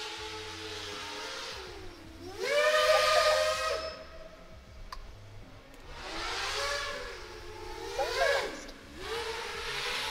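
A 7-inch FPV quadcopter's T-Motor brushless motors and seven-inch propellers whine in flight. The pitch dips and then sweeps up in several surges as the throttle is punched, the strongest about two and a half seconds in, over a steady rush of air.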